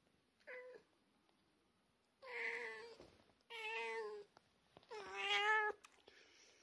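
Cat meowing, a short call followed by three longer ones, the last the loudest.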